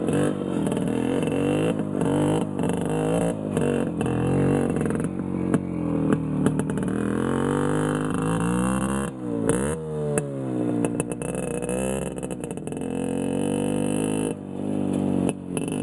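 Minsk two-stroke single-cylinder motorcycle engine revving, its pitch rising and falling again and again, with a sharp drop and climb about nine seconds in.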